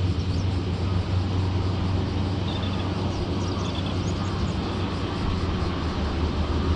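A motor's steady low drone, running evenly at a constant pitch, with an even hiss above it.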